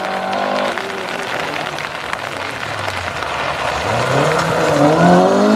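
Rally car engine under hard acceleration on a gravel stage, its note climbing steadily in pitch and getting louder over the last couple of seconds as the car comes close. A steady hiss lies underneath throughout.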